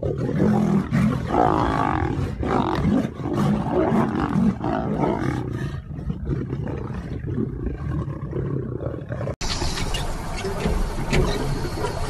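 A pride of lions growling and roaring as they fight over a carcass while feeding, rough irregular calls. About nine seconds in the sound cuts off suddenly and gives way to a steady rushing noise.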